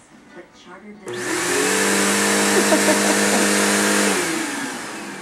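Vacuum cleaner switched on about a second in, running steadily with a motor whine and an airflow hiss for about three seconds, then switched off and winding down near the end.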